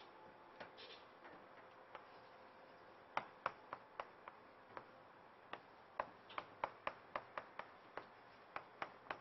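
Chalk on a blackboard while writing: a faint, irregular run of short, sharp taps and clicks, a few per second, starting about three seconds in.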